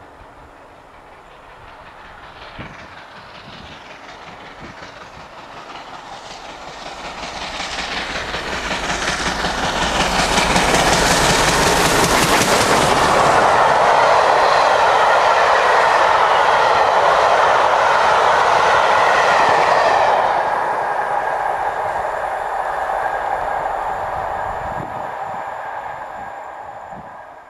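LNER A4 class three-cylinder Pacific steam locomotive 60019 Bittern and its train of coaches passing at speed. The sound builds as the train approaches, is loudest for about ten seconds as the engine and coaches rush by with their wheels running on the rails, then falls away and fades near the end.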